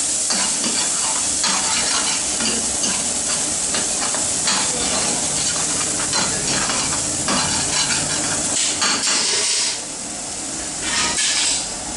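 Chopped garlic sizzling in a frying pan on a gas burner, stirred and scraped with a metal ladle in repeated strokes. It turns quieter near the end.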